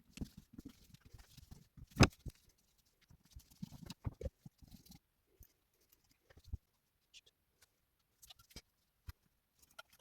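Knocks, clicks and rustling of small metal carburettor parts being handled and taken apart on a bench, busiest in the first half, with one sharp knock about two seconds in, then only a few scattered clicks.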